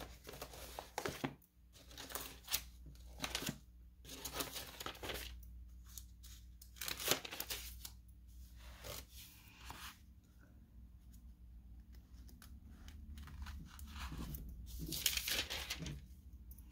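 Thin Bible pages being leafed through: a string of irregular paper rustles and flicks, with a longer rustle near the end.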